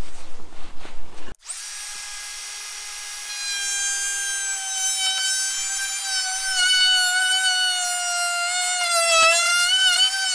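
Ryobi 18V cordless trim router running, with a brief rustle of handling before it cuts in about a second and a half in. It gives a steady high whine that grows louder a couple of seconds later and wavers near the end as the wide bit cuts a shallow mortise into the wooden plank.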